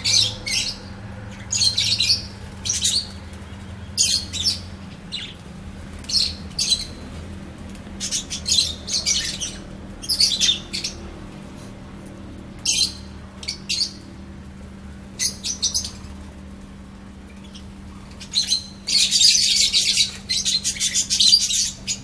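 A flock of budgerigars chirping in short high bursts every second or so while they feed, breaking into a couple of seconds of dense, continuous chatter near the end. A steady low hum runs underneath.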